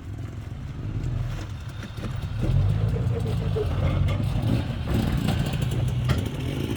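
Jeep Wrangler TJ Unlimited Rubicon's 4.0-litre straight-six engine pulling at low revs as the Jeep crawls up a rock waterfall. The engine gets louder under load about two and a half seconds in, with a few short sharp knocks.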